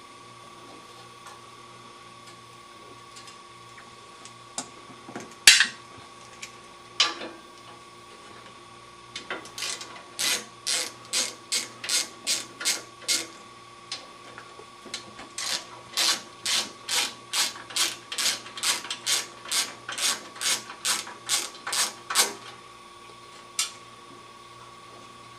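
Socket ratchet clicking as screws are backed out: a few single clicks, then two long even runs of about two clicks a second.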